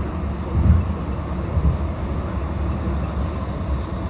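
Steady low rumble of a car driving, road and engine noise, with a couple of brief low thumps in the first two seconds.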